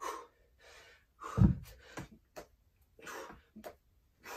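Hard, rapid breathing from a man mid-way through dumbbell burpees, in short puffs. About a second and a half in comes one heavy low thud as he drops down with the 25 lb hex dumbbells to the floor, with a few lighter knocks after it.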